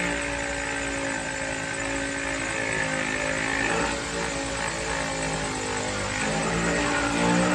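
Power sander running on a part: a steady motor drone whose pitch shifts slightly under load, over a rough sanding hiss.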